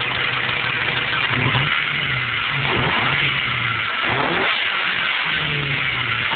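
Honda CRX del Sol VTi's 1.6-litre VTEC four-cylinder idling through its exhaust, with three quick blips of the throttle that rise and fall back to idle about 1.5, 3 and 4 seconds in.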